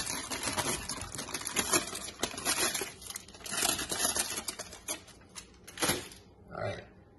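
Aluminium foil crinkling as it is tipped up, with small crisp hash brown rounds pattering and clattering off it onto a plate. A sharper knock comes a little before six seconds in, then it goes quiet.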